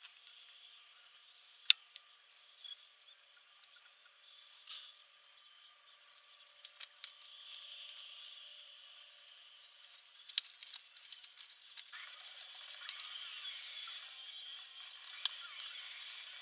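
Small hand tools working on an electric guitar: scattered sharp clicks and taps, then a steady scratchy scraping from about twelve seconds in.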